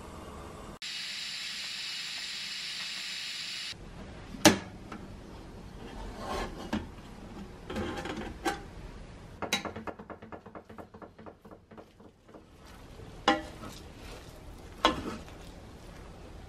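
A stovetop pressure cooker hisses steam for about three seconds. Then comes one loud sharp metallic click and a run of clicks and clatter as the lid is unlocked and lifted, then a fast ratchet-like ticking and a few knocks against the pot as the rice is stirred.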